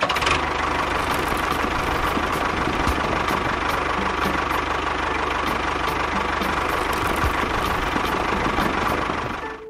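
Steady engine-like running of a small DIY toy tractor while it bulldozes sand with its front blade, fading out near the end.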